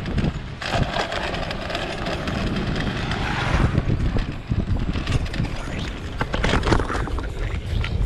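Wind rumbling on the microphone while riding an electric bicycle that is being pedalled with its battery flat, with repeated rattles and clicks from the bike, most of them in the second half.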